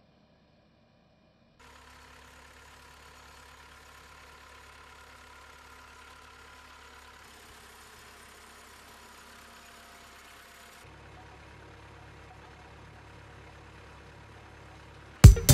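Faint, steady running of a tractor engine pulling a row-crop hoeing machine, with a low hum and a few steady tones. It starts after a moment of near silence and changes abruptly about seven and eleven seconds in.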